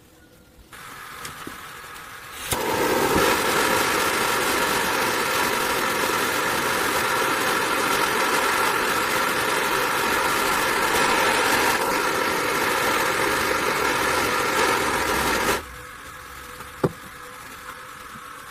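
Handheld butane gas torch on a gas can burning with a steady rushing hiss as it lights the wood chips in a smoke generator. It starts sharply about two and a half seconds in and cuts off suddenly about three seconds before the end. A quieter steady hum is under it and goes on after it.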